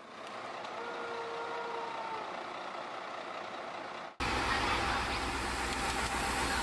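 Heavy mobile-crane diesel engine running, with a faint whine about a second in. About four seconds in, the sound cuts abruptly to a louder, steady low rumble of another crane's engine.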